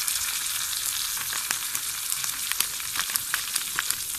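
Hot coconut oil sizzling in a pan, with scattered small crackles and pops, as sambar powder is tipped in to be roasted in the oil.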